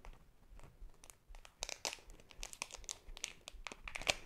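Packaging being crinkled and torn open by hand: a run of sharp crackles, sparse at first and busier from about a second and a half in, loudest just before the end.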